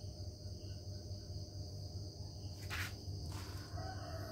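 Steady high-pitched chirring of insects in the background, with two brief rustling noises about three seconds in.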